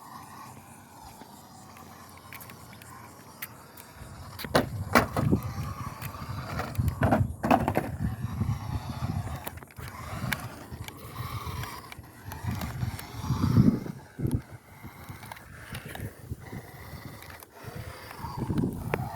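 Toy-grade RC car driving over rough ground: a faint wavering whine from its small electric motor, with wheels rumbling and the plastic body rattling and knocking. It is quieter for the first few seconds, then gets busy with many sharp knocks.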